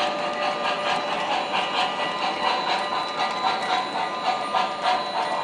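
MTH Premier Pennsylvania Railroad G-5s 4-6-0 O-scale model steam locomotive running on a model layout: its onboard sound system puffs steam chuffs and its wheels click along the track in a quick, even rhythm.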